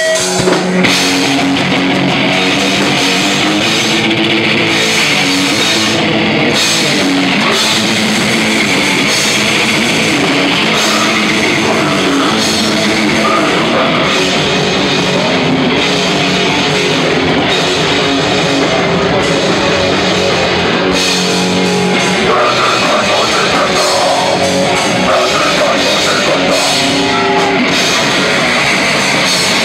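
Live heavy metal band playing loud: distorted electric guitars and bass over a drum kit, a dense, unbroken wall of sound.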